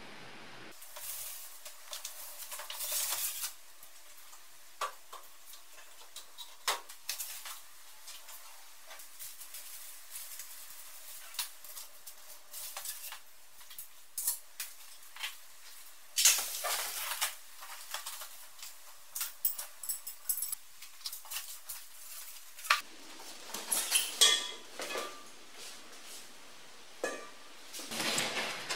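Scattered clinks, knocks and rattles of metal parts together with rustling cardboard and packaging, as a sandblasting cabinet kit and blast pot are unpacked and handled. The loudest clatter comes about sixteen seconds in and again around twenty-four seconds.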